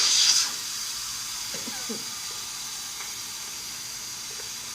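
Pressure cooker letting off steam through its valve: a loud hiss that starts suddenly, then settles into a steady hiss as the pressure is released before the lid can be opened.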